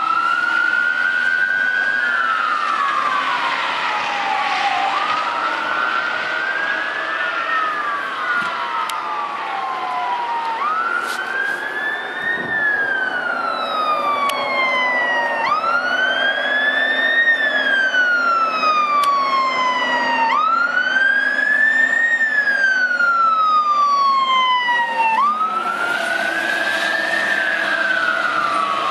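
Fire apparatus electronic siren on wail, rising and falling about once every five seconds. The wail sounds doubled during the first ten seconds.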